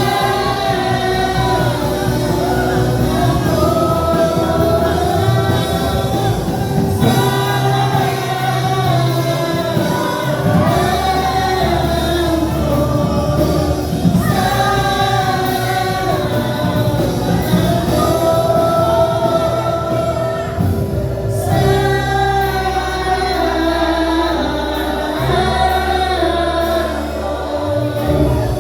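Gospel worship song, sung by a group of voices with a female lead over a band with steady bass.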